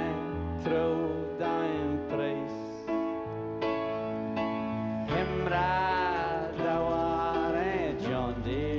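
Live band playing a country-flavoured song, with plucked guitar notes over sustained chords. A wavering melody line comes in about five seconds in.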